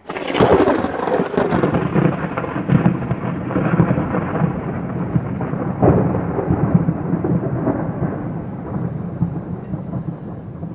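Thunder from a lightning strike: a sudden sharp crack about half a second in, then a long rolling rumble broken by further cracks, with another loud clap around the middle, slowly fading.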